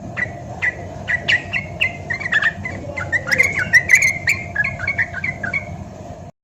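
Yellow-vented bulbul (trucukan) singing a fast run of short, chirping notes over a steady background hum. The recording cuts off abruptly near the end.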